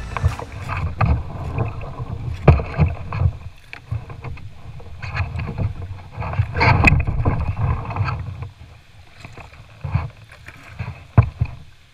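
Kayak paddle strokes splashing in river water at an uneven pace, over a low rumble of wind on the microphone.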